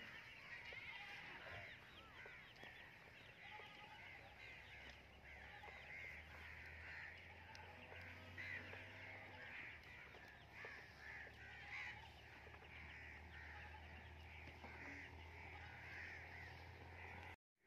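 Many birds calling and chattering at once, a steady high twittering. A low steady hum sits underneath from about four to fourteen seconds in.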